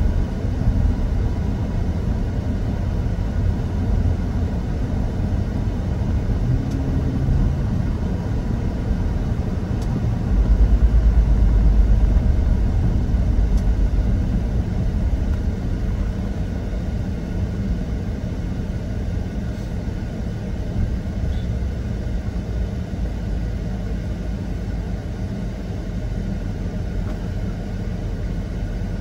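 Steady low vehicle rumble picked up by a dash camera, swelling louder for a few seconds near the middle.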